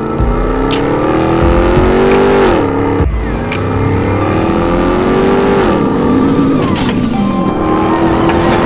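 2021 Ram 1500 TRX's 6.2-litre supercharged HEMI V8 accelerating hard through the gears: the engine's pitch climbs, drops at an upshift about two and a half seconds in, climbs again, drops at a second upshift near six seconds, then climbs once more.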